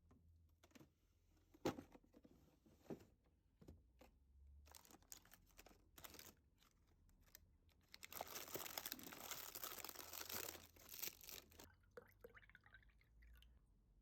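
Small clicks and knocks from handling things, then about three and a half seconds of crinkling or tearing paper or plastic starting about eight seconds in.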